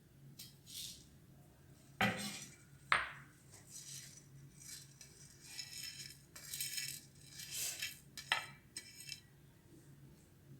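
Kitchen utensils knocking and clinking: two sharp knocks about two and three seconds in, the second ringing briefly, then a run of irregular scraping strokes.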